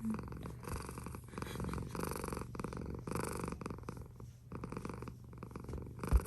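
Cat purring close to the microphone, a continuous rumble that swells and fades in waves. A single low thump near the end.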